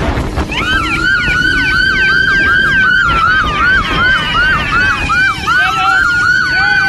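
Police car siren sounding a fast yelp, about four rising-and-falling whoops a second over a slower wailing tone, with steady wind and road noise underneath.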